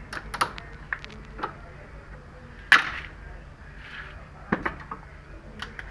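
Irregular sharp clicks and knocks of hard plastic as a TV remote is being broken apart, with one loud crack a little under three seconds in and a small cluster of clicks later on.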